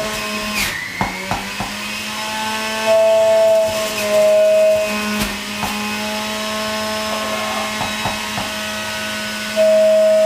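Electric juicer's motor running with a steady whine, getting louder for stretches about three seconds in and again near the end as produce is fed through. Scattered sharp knocks of vegetables being pushed into the chute.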